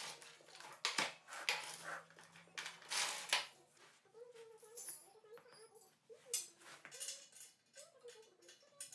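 Metal tools and parts clinking and clattering several times, followed by a wavering, whining tone that bends up and down in pitch.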